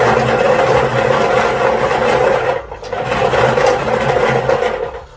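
Lottery ball machine running, its blower motor humming while plastic balls tumble and rattle in the mixing chamber; it cuts out briefly about two and a half seconds in and stops near the end.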